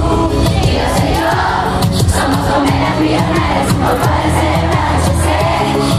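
Live pop song over a concert PA, a woman singing in Spanish over a steady beat, with the crowd's voices mixed in. Heard from within the audience, picked up by a phone.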